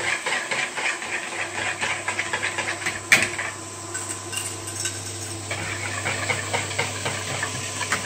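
Wire whisk beating eggs and cream in a plastic bowl: a quick rhythmic clicking of the wires, broken by one sharper knock about three seconds in and a short lull before the whisking picks up again. Underneath, a steady hiss from leeks and carrots sizzling in a frying pan.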